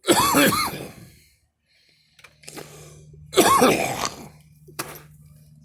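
A girl coughing because cigarette smoke went down the wrong way: two loud coughs at the start, then another run of coughs about three and a half seconds in.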